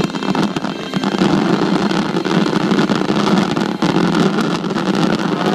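Finale barrage of fireworks: many shells bursting in quick succession, merging into a continuous rumble with dense crackling.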